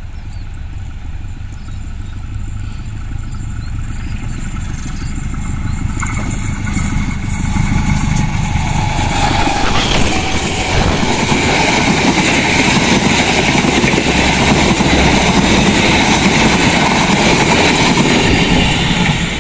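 Locomotive-hauled passenger train approaching at speed and passing close by. The sound builds steadily for about ten seconds, then holds loud with the rush and clatter of the coaches' wheels on the rails as they go past.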